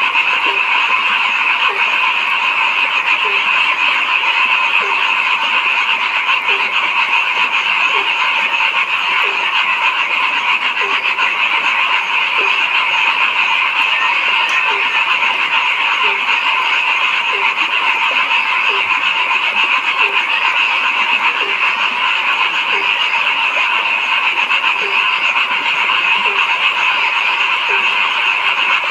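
Dense, steady chorus of many frogs calling together, with one lower croak standing out and repeating about once a second.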